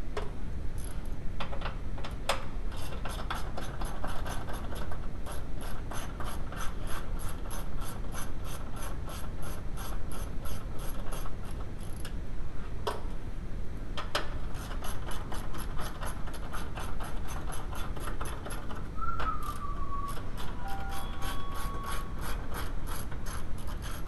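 Ratchet wrench clicking in long, even runs of about four clicks a second, with a couple of short pauses. A brief squeak falling in pitch comes about three-quarters of the way through.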